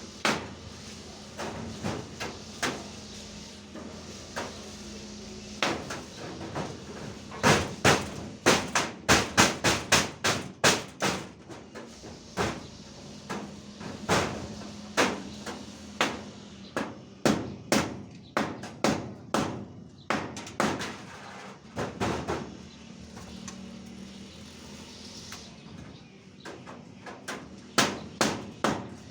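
Repeated hammer blows, coming in runs of quick strikes at about three a second with pauses between runs.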